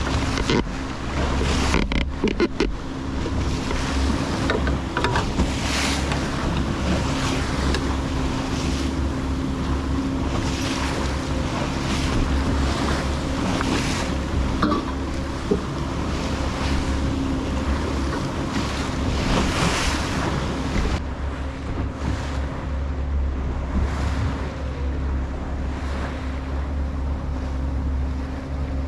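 Boat engine running steadily with a low hum, under repeated rushes of wind on the microphone and water splashing past the hull.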